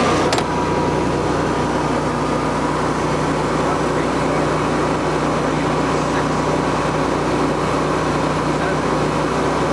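Briggs and Stratton 15 kW air-cooled natural gas standby generator engine running at a steady governed speed, just after starting up on manual override.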